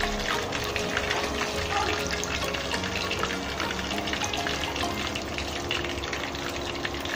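Chicken drumstick deep-frying in a pot of hot oil: a steady, dense sizzle and crackle of bubbling oil.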